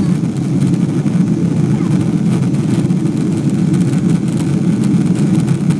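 Steady low drone of a Boeing 777-200's engines and rushing air, heard from inside the passenger cabin in flight.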